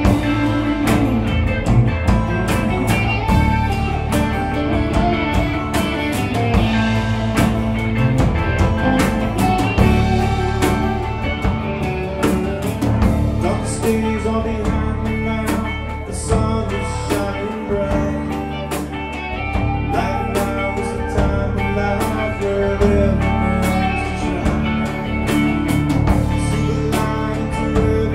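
Live alt-country rock band playing with a steady drum beat: electric guitars, acoustic guitar, bass guitar and drum kit.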